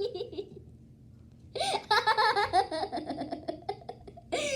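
A child laughing and giggling in a high voice for about two seconds, starting about a second and a half in, with a short loud vocal sound near the end.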